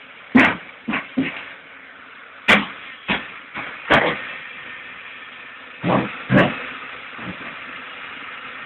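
Excavator diesel engine running at a steady low idle, with about nine short sharp knocks at irregular intervals over it.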